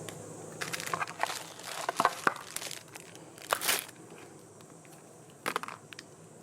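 Crunching, crinkling noises from something being handled: a cluster of sharp crackles in the first four seconds, then a short one near the end.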